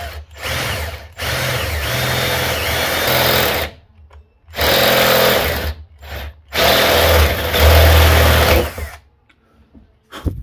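Power drill with a twist bit boring through a car's sheet-metal roof, run in four bursts of one to three seconds with short pauses between, the motor's pitch wavering as it bites into the metal.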